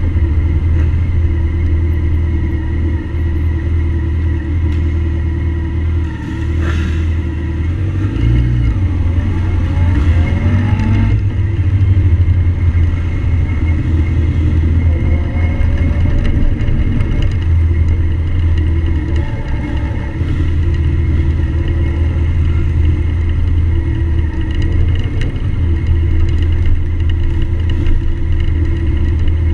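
Motorcycle engine running as the bike is ridden along, a loud steady low rumble, with a few rises and falls in engine pitch about a quarter of the way in.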